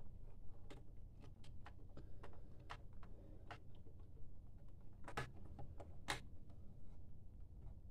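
Small plastic-and-metal clicks and taps as laptop RAM modules are handled and pressed back into their slots, with two louder snaps about five and six seconds in.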